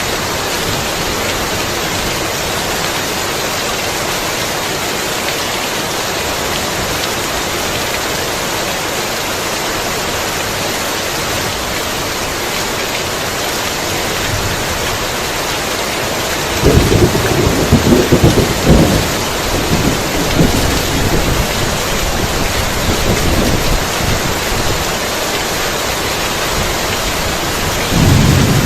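Heavy rain falling in a steady hiss, with a loud clap and rumble of thunder about 16 seconds in that dies away over several seconds, and another rumble starting near the end.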